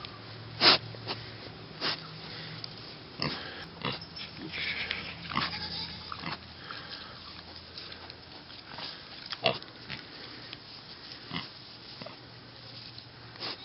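Miniature pig piglets snuffling and sniffing, with scattered short snorts and grunts and a busier stretch of snuffling a few seconds in.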